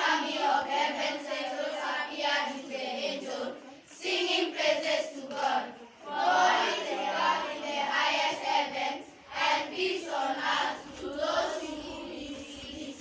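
A group of children's voices performing together in unison, in phrases a few seconds long with short breaks between them.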